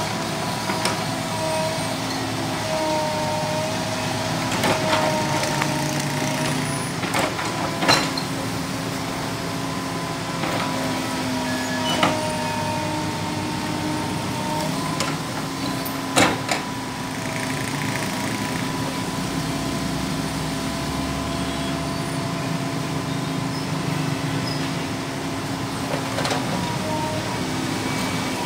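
Komatsu PC200LC hydraulic excavator's diesel engine and hydraulics running steadily under load, with a whine that drifts slightly in pitch, while the bucket works rubble. Sharp clunks of bricks and rubble striking come every few seconds, the loudest around 8, 12 and 16 seconds in.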